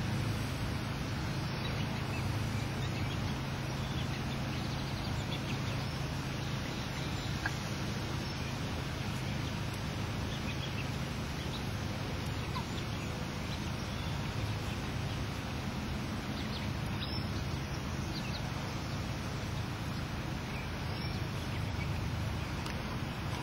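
Young chickens, a little over two months old, giving short faint peeps and clucks here and there over a steady low hum.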